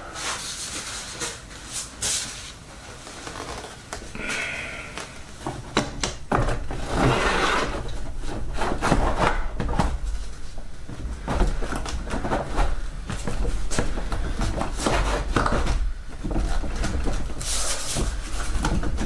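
Handling noises as a large model-airplane wing is carried and lowered onto the fuselage: scattered knocks and clicks with bouts of rubbing and rustling.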